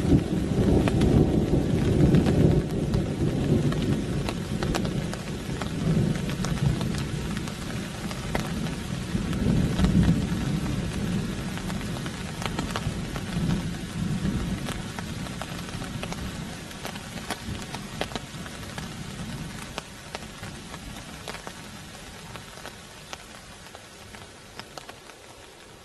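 Thunder rumbling in several rolling swells over rain pattering, the rumble dying away over the second half as the sound grows steadily fainter.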